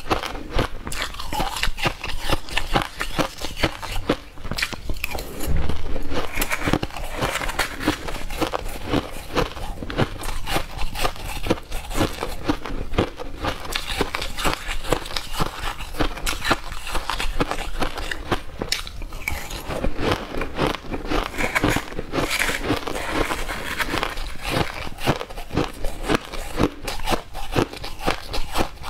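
Crushed ice being crunched and chewed right at a clip-on microphone, a dense, continuous run of sharp crackles and crunches.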